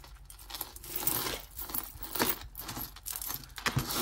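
Glass beads and gold-tone chain of a beaded necklace clicking and rustling as it is handled and untangled, in an irregular run of small clicks, the sharpest about two seconds in.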